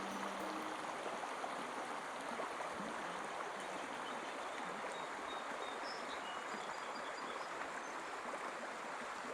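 Creek water running steadily over riffles, a constant rushing.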